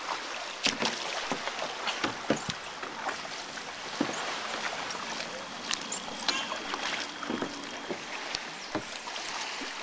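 Water splashing and trickling in the shallows as sit-on-top kayaks and a paddle are worked ashore: a steady wash of water noise with many small sharp splashes and knocks.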